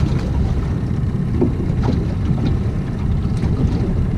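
Wind buffeting the microphone in a steady low rumble on a small open boat, with a few faint clicks about halfway through.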